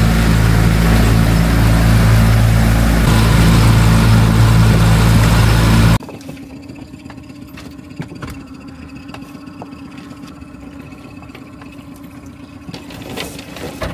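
Boat engine running steadily under way, loud and close. About six seconds in it cuts off abruptly to a much quieter, steady engine hum with scattered clicks.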